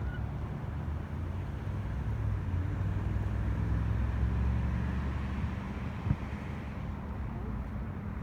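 Helicopter flying overhead: a low drone that swells to its loudest about four seconds in, then fades. A single sharp knock comes about six seconds in.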